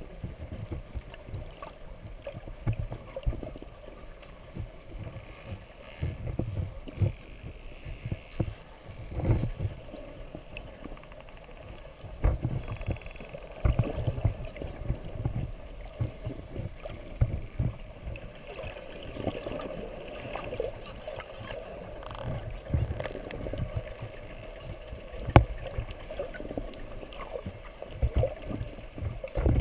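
Spinner dolphins whistling underwater: many short, high whistles that sweep up and down one after another, with a brief buzzing pulse train about 13 seconds in and scattered clicks. Under them run irregular low thumps and rumbles of water moving against the camera housing, and a steady low hum.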